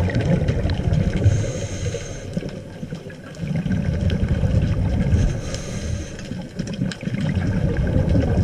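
Scuba diver breathing through a regulator underwater: a short high hiss on each inhale about every four seconds, and a low bubbling rumble of exhaled air between.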